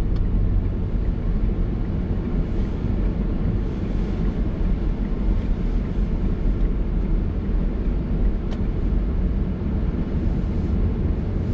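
Steady low rumble of tyres and road heard inside the cabin of a moving VinFast VF e34 electric car, with no engine note.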